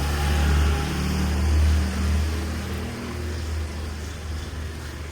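Rain hissing on a street, with a low vehicle rumble that is strongest at first and fades over the first few seconds.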